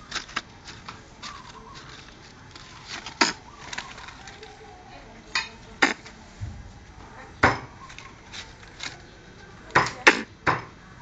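Pet squirrel giving short, sharp bark calls at irregular intervals, with a quick run of three near the end: an alarm at the dry banana leaves in front of it.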